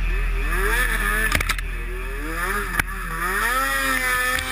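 Snowmobile engine running under the rider, its pitch rising and falling repeatedly as the throttle is worked, over a steady low rumble. A few sharp knocks cut in, about a second and a half in and again near three seconds.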